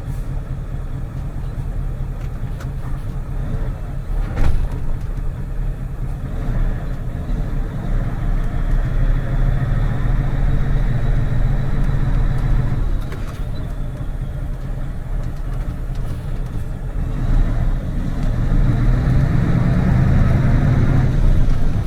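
Mercedes Actros truck's diesel engine running as the truck is driven, with one sharp knock about four seconds in. The engine note rises in pitch near the end as the truck picks up speed.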